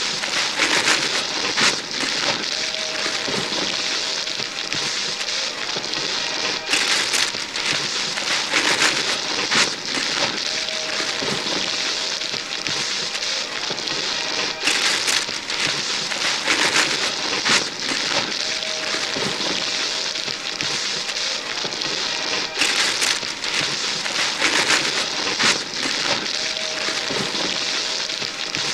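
Gift wrapping paper being ripped and crumpled off boxes by several pairs of hands at once, a continuous dense tearing and rustling with sharper rips every second or so. The same few seconds of tearing repeat about every eight seconds as a loop.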